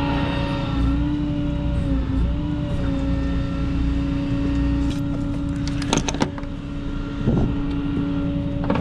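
Flatbed tow truck running with a steady mechanical hum over a low rumble. A few sharp metallic clicks and rattles come about six seconds in and again near the end, as the wheel straps are handled.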